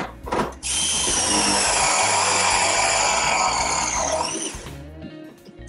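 Milwaukee M12 ProPress tool running a press cycle on a copper fitting: a steady motor whine for about four seconds that sinks slowly in pitch as the jaws close under load, then winds down. A couple of clicks come just before it starts.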